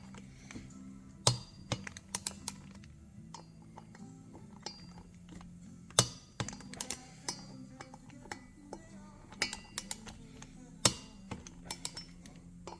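Torque wrench ratcheting on the titanium brake-rotor bolts of a motorcycle rear wheel as they are tightened to 20 ft-lb: runs of small clicks, with three much sharper clicks spread through, typical of the wrench breaking over at its set torque. A steady low hum sits underneath.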